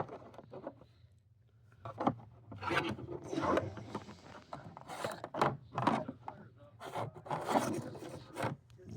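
Hand tools being set down and shuffled around inside a tool box: irregular knocks and scraping as metal tools slide and bump into place, with a brief lull about a second in.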